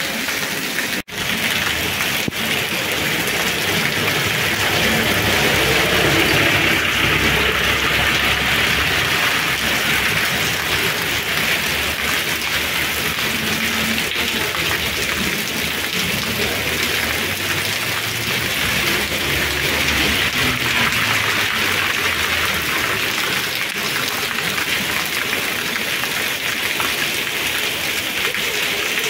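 Steady rain falling on a wet paved street, an even hiss that cuts out briefly about a second in.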